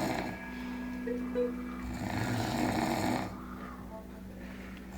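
A pet snoring: a rasping snore at the start and another from about two seconds in.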